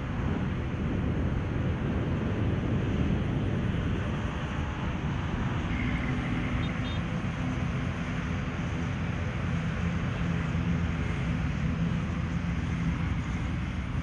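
Steady low rumble of airport ground traffic and aircraft engines, with a low hum joining it from about six seconds in.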